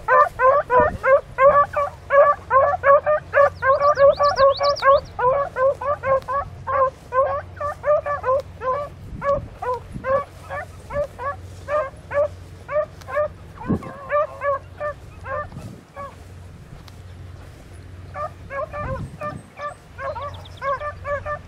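A brace of hunting beagles baying in rapid, overlapping high yelps, several a second, as they work a rabbit's scent. The baying thins out and stops about 16 seconds in, then picks up again near the end.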